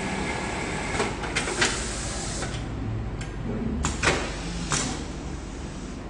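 An automatic placket-setting machine clacks and hisses several times as its pneumatic clamps and air cylinders work the shirt panel. A steady machine hum underneath stops about a second in.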